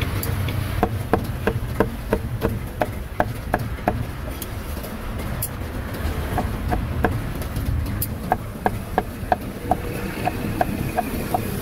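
Meat cleaver chopping roast beef on a round wooden chopping block: a steady run of knocks, about three a second, with a short pause midway. A low steady rumble underneath.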